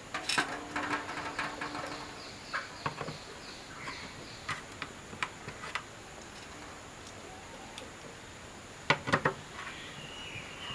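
Scattered light clicks and taps of a replacement bulb being handled and fitted into an LED flasher, with two louder knocks close together near the end.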